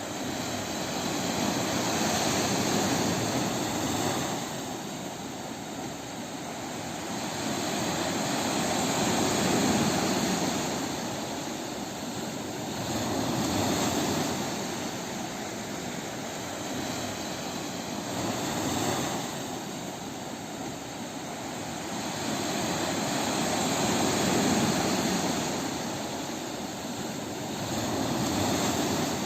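Waves breaking on a beach: a continuous wash of surf that swells and eases every four to five seconds.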